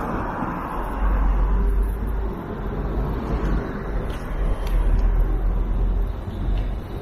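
Street traffic noise with wind rumbling on the microphone, the rumble coming and going in gusts.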